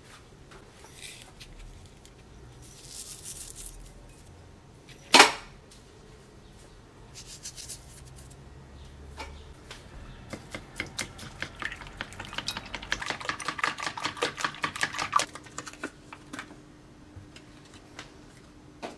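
Kitchen handling sounds: light sprinkling near the start, one sharp knock about five seconds in, then a long run of rapid clicking as a fork beats eggs against a ceramic bowl.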